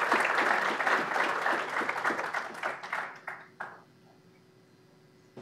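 Audience applauding: a dense patter of many hands clapping that thins out after about three seconds and ends with a few last isolated claps.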